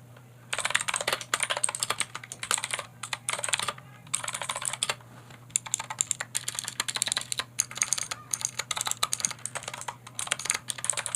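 Typing on a MageGee MK-Star61 61-key mini mechanical keyboard: fast runs of key clicks, starting about half a second in, with short pauses between runs.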